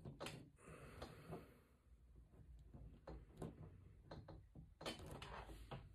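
Faint clicks and light handling noise of small plastic action-figure parts: toy swords being worked into a figure's back accessory.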